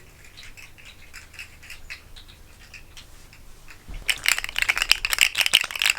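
Fidget snake toy clicking and rattling as it is handled: faint scattered clicks at first, then from about four seconds in a fast, loud run of rattling clicks.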